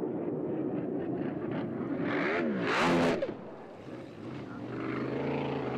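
Racing drag boat engines at full throttle, their pitch bending up and down and peaking in a loud rush about three seconds in, then dropping off suddenly as the boat crashes. A steadier engine drone comes back near the end.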